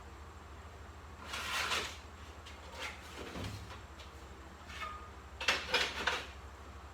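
Sheet-metal panel being handled and shifted into place by hand: a scrape about one and a half seconds in, a soft bump midway, then a cluster of knocks and scrapes near the end, over a steady low hum.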